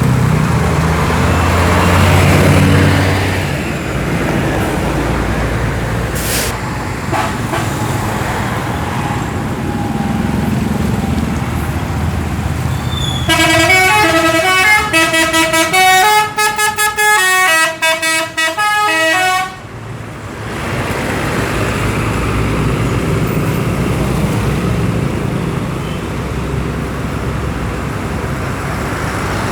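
Bus engines running, and from about 13 seconds in a bus's multi-tone telolet horn plays a fast stepping melody for about six seconds before the engine noise carries on.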